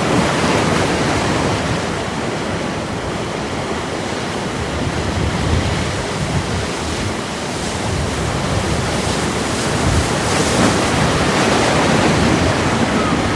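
Sea surf washing on a shore: a steady rush of waves that swells a little about halfway through and again near the end.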